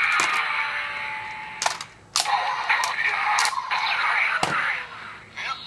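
Electronic sound effects from a DX Door Ju toy gun's small speaker, playing its Colorful Commercial effect: crackly, buzzing effect noise with a brief gap near the middle, cut by several sharp click- or shot-like hits.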